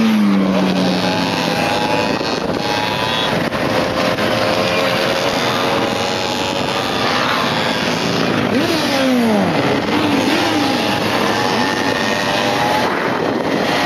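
Motorcycle engines of a riding group, heard from one of the moving bikes: several engines running and revving, with pitch sweeps as bikes accelerate and slow, the clearest a little after the middle, over heavy wind and road noise on the microphone.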